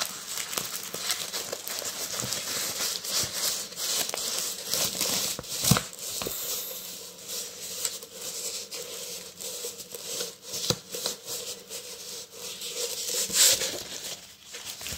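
A rolled diamond-painting canvas and its clear plastic film being handled, crinkling and rustling, with a few sharper crackles and taps. The loudest come about six seconds in and near the end.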